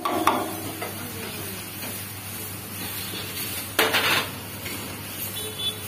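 Metal ladle spreading dosa batter in circles on a flat griddle, scraping and clinking against it. There is a sharp knock just after the start and a short, louder clatter about four seconds in.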